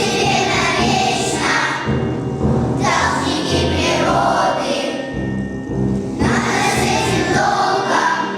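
Children's choir singing a song in unison phrases over instrumental accompaniment, with short breaths between the phrases.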